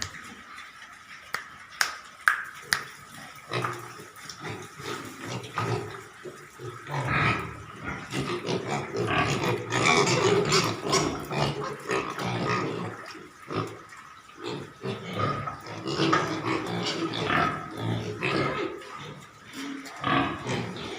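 Pigs grunting, louder and busier from about seven seconds in, with a few sharp clicks in the first few seconds.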